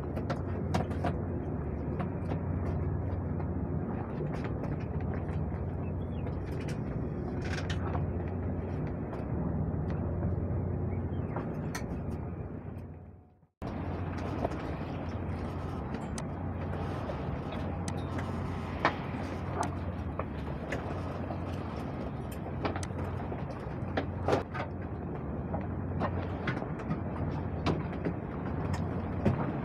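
Steady low rumble of wind and water around a small sailboat under way, with scattered clicks and knocks from lines and rigging being handled. About halfway through it fades out and cuts back in.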